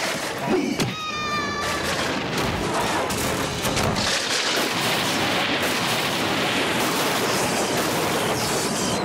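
Horse-drawn carriage crash: a dense, continuous clatter of knocks and crashing, with a horse whinnying about a second in.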